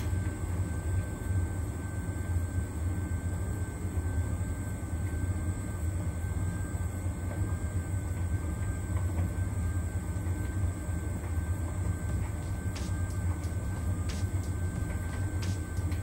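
Beko heat pump tumble dryer running on its Cotton Extra Dry programme, the drum tumbling a load of towels. It gives a steady low hum with a faint high-pitched whine over it, and a few light ticks near the end.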